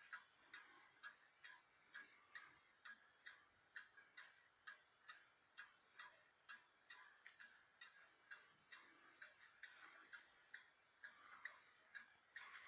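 1960 Swiss Neuchatel mantel clock ticking steadily and faintly, about two and a half ticks a second.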